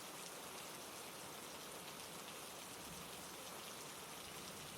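Steady, soft rain: a constant patter of raindrops.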